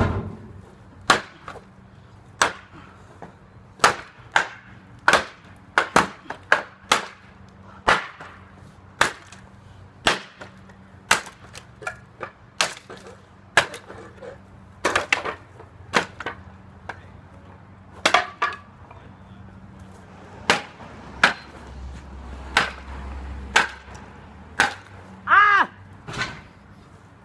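Repeated hand-hammer blows, sharp separate strikes at an uneven pace of about one to two a second, smashing and breaking something up.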